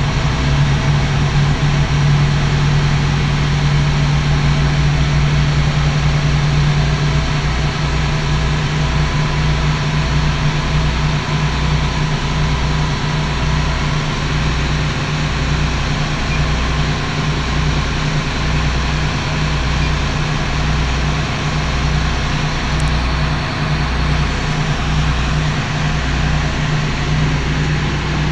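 Twin Cummins QSC 600 hp six-cylinder marine diesels running at idle as they warm up, heard from inside the wheelhouse: a loud, steady drone. Under it is a low throb whose pulses slow from several a second to about one a second during the first ten seconds, then hold steady.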